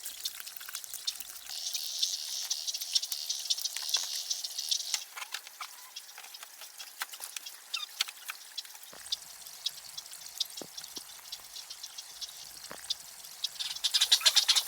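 Outdoor nature ambience: many scattered light ticks and taps, with a high buzzing hiss, like an insect's, for a few seconds near the start.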